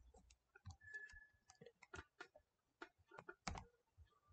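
Faint computer keyboard keystrokes: scattered single clicks at irregular intervals as a line of code is typed, with one louder keystroke about three and a half seconds in.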